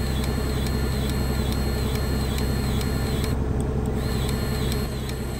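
Kubota KX040-4 mini excavator's diesel engine running steadily, with a cordless grease gun running on the track adjuster to re-tension the slipped track. The gun stops near the end.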